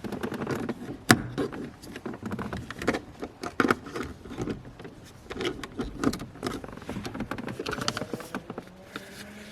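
Plastic clicks, knocks and rubbing from handling a dash camera's power cable and plug, irregular throughout, with one sharp click about a second in. A faint steady hum comes in near the end.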